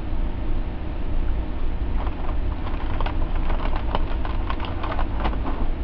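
A run of quick, irregular clicks from about two seconds in, over a steady low hum.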